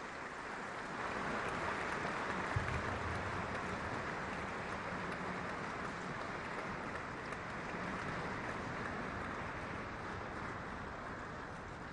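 Audience applauding steadily, the clapping building up about a second in and easing off slightly near the end.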